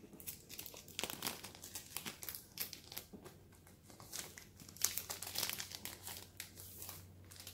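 Plastic comic-book bag crinkling in irregular bursts as it is handled and its taped flap is opened.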